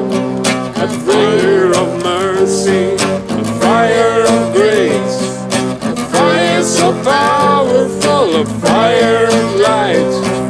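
Live band music: acoustic guitar strumming over keyboard chords, with a gliding, wavering melody line on top.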